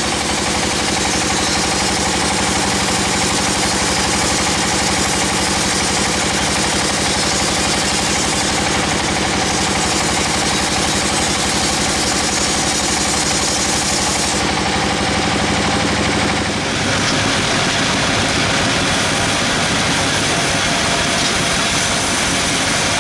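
Sawmill machinery running steadily with an engine-like drone. About seventeen seconds in the sound shifts: the low rumble gets louder and rougher while the highest hiss drops away.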